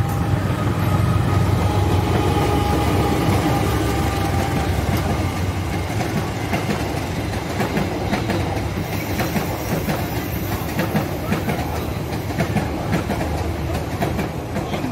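A CC 201 diesel-electric locomotive hauling a passenger train runs past with a steady low engine drone. From about six seconds in, the passenger coaches roll by close, their wheels clicking and clattering over the rail joints.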